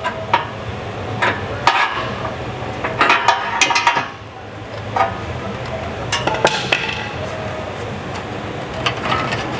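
Scattered metallic clinks and knocks of hand tools and exhaust hardware as a 2013 Camaro SS's exhaust system is being unbolted from underneath, over a steady low hum.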